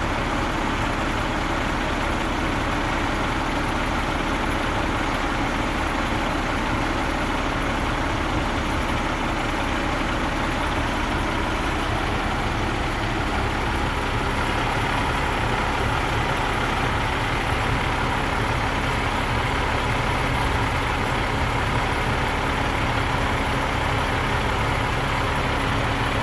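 International DT466E inline-six diesel engine of a 1998 International truck running steadily while it powers the hydraulics that raise the conveyor boom. Its steady tone shifts slightly about halfway through.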